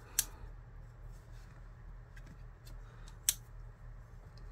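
Civivi Appalachian Drifter II front-flipper folding knife worked by hand: two sharp metallic clicks of the blade and liner lock, one just after the start and one about three seconds later, with faint handling ticks between.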